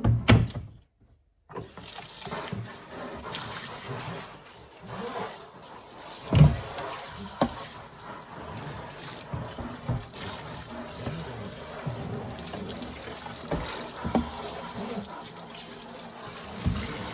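A freezer tray being washed in a sink: water running and splashing, with scattered knocks of the tray against the sink.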